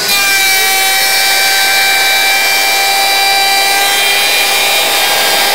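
Compact DeWalt router running steadily at full speed while it routes a slot in a board, a high motor whine over the hiss of the cut. The pitch shifts slightly about four seconds in.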